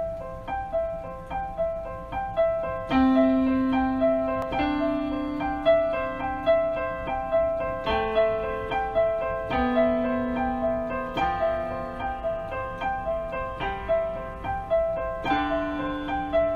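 Background keyboard music, piano-like: a quick repeating figure of short notes over lower held notes that change every second or two.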